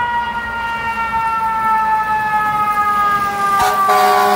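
Fire engine siren wailing: its tone, just risen, falls slowly. About three and a half seconds in, a lower, louder horn blast joins.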